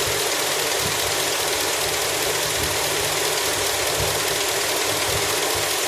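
An engine idling steadily, with uneven low thumps under a constant running noise.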